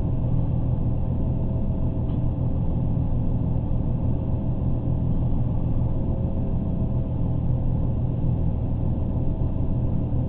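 Steady low rumble of a passenger train running, heard from inside the carriage, with a faint steady hum above it.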